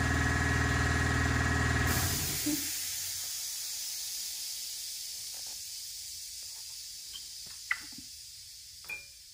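Compressed-air shop equipment running with a steady hum that stops about two seconds in, leaving a hiss of air that slowly fades away. A couple of light clicks come near the end.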